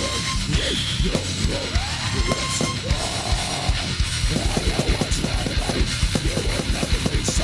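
Heavy metal music: distorted guitars over dense drumming, with bending guitar notes near the start and about two seconds in, and a faster run of kick-drum hits from about four seconds in.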